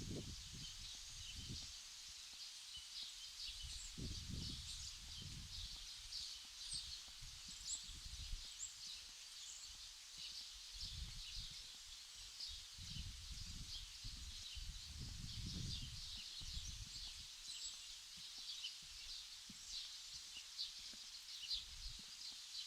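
Outdoor ambience: a dense, continuous chorus of small high-pitched chirps, with irregular low rumbles of wind buffeting the microphone.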